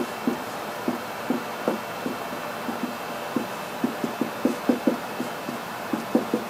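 Dry-erase marker strokes on a whiteboard: short, irregular squeaks and taps as lines are drawn, over a steady background hiss.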